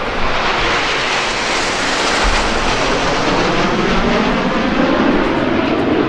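A formation of nine Snowbirds CT-114 Tutor jet trainers passing overhead, the loud steady noise of their single jet engines falling in pitch in the second half as they move away.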